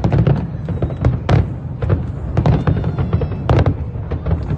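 Fireworks display: a rapid, irregular string of sharp bangs and cracks from bursting shells over a continuous low rumble.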